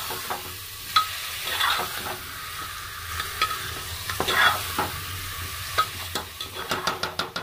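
Chicken pieces in masala frying with a steady sizzle in a pressure cooker pot, stirred with a slotted metal spoon that scrapes and clinks against the pot's metal sides. Near the end the strokes speed up into a quick run of clinks, about four or five a second.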